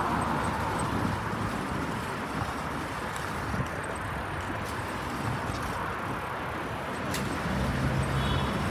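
Street traffic noise from passing cars, steady throughout. Near the end a vehicle engine hums close by.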